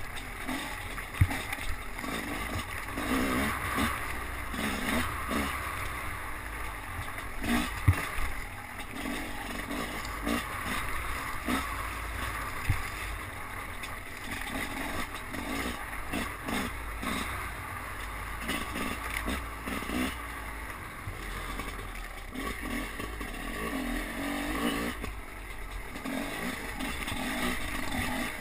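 Enduro dirt bike engine revving up and down continuously on rough ground, heard through a helmet-mounted camera with a low wind rumble. There are a few sharp knocks, the loudest about a second in and about eight seconds in.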